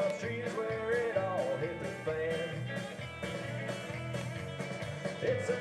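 Background music: a guitar-driven song with a steady beat.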